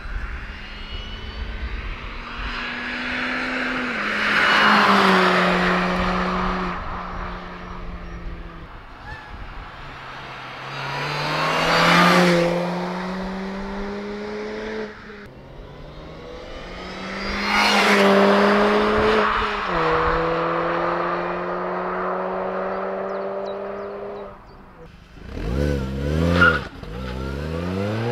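Mini John Cooper Works GP (R53) supercharged 1.6-litre four-cylinder running at high revs with a thin supercharger whine, swelling loud three times as the car goes past. Near the end it is revved in a few quick blips, then the revs climb steadily as it accelerates.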